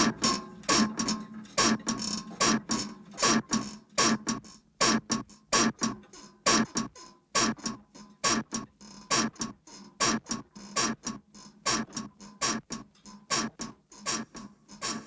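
Metal bedsprings squeaking in a steady rhythm, about two to three short creaks a second, each one sliding down in pitch as the bed is bounced on.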